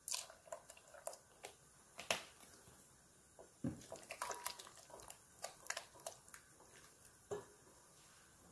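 Silicone spatula stirring heavy cream into a wet ricotta and cottage cheese mixture in a glass bowl: faint, scattered clicks and scrapes against the glass, with a few louder taps.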